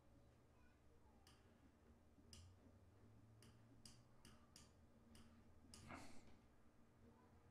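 Near silence with faint computer mouse clicks, about eight of them spaced irregularly, and a brief soft rustle about six seconds in.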